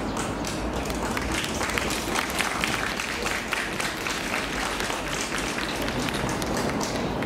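Spectators clapping, many scattered claps with some voices among them.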